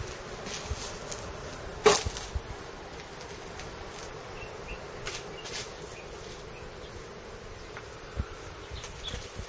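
Steady insect buzzing, with a sharp knock about two seconds in and a few lighter clicks later.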